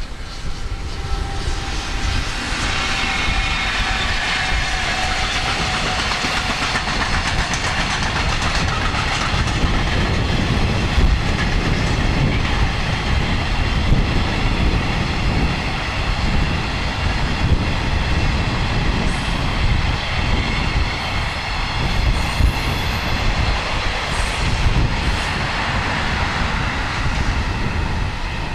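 Freight train hauled by an electric locomotive passing close by, its wagons' wheels rumbling and clattering along the rails. It builds up in the first second or two, then holds loud and steady.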